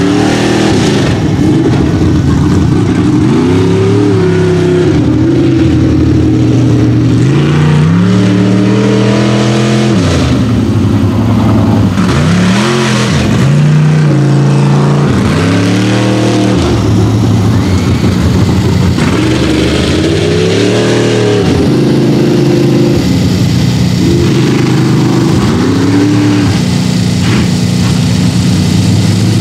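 Mud racing super truck engine revving hard on the throttle, its pitch climbing and dropping again and again, with several sharp drops as the driver lifts off.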